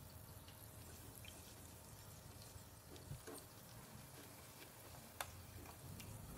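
Near silence: a faint low hum with a few soft clicks and taps of a silicone spatula stirring melting ghee in a clay pot, and one sharper click about five seconds in.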